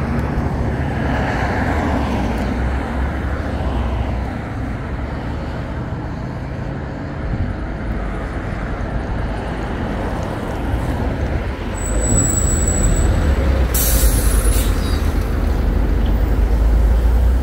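Road traffic passing, then a LiAZ 5292.67 city bus with a Weichai compressed-natural-gas engine pulling in close. Its engine rumble grows louder about two-thirds of the way in, there is a brief high squeal, and a short hiss of the air brakes follows as it stops and idles.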